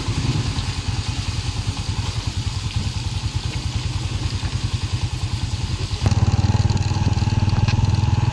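Small motorcycle engine running with an even, rapid exhaust pulse. About six seconds in it turns suddenly louder and fuller as the bike is ridden.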